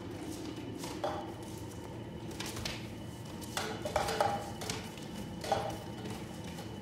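Scattered light clinks and taps, some with a short ring, as puppies knock against the toys hanging from a PVC play frame; a cluster of them comes about four seconds in.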